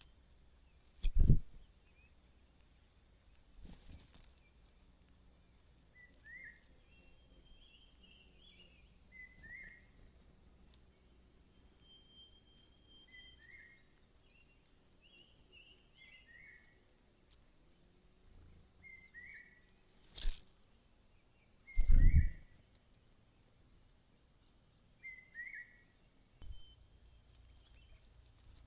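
A bird chirping with a short call about every three seconds, over fainter high twittering. Loud thumps come about a second in and twice near two-thirds of the way through.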